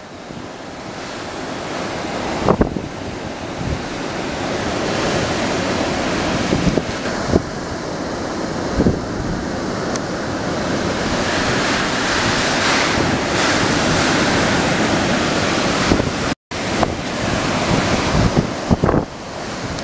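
Hurricane-force wind and driving rain, the gusts buffeting the microphone, the noise building steadily louder. A few sharp knocks sound at intervals, and the sound cuts out for an instant about sixteen seconds in.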